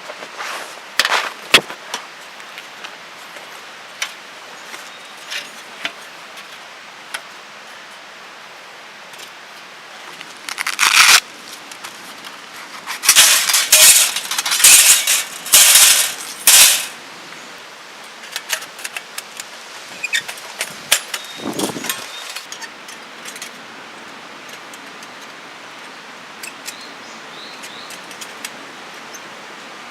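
Handling noises: scattered sharp clicks and knocks, with several loud bursts of noise around the middle.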